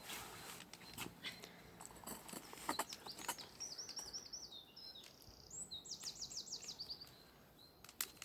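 A songbird singing two quick runs of rapidly repeated high notes, the second a longer trill, over outdoor background noise. Scattered clicks and rustling from handling things come in the first few seconds.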